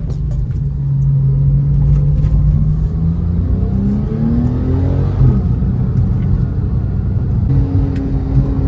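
Porsche 911 Turbo S (997.2) twin-turbo flat-six engine running as the car drives. Its note climbs for a couple of seconds around the middle and drops suddenly, as on a gear change, then holds a steady higher note near the end.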